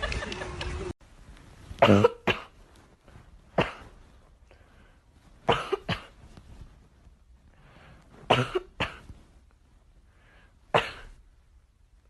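A series of short, sharp coughs, mostly in pairs, coming every two to three seconds.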